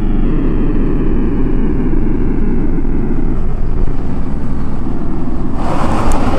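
A loud, steady low rumble with a faint whine slowly falling in pitch. About five and a half seconds in, a hissing noise joins it.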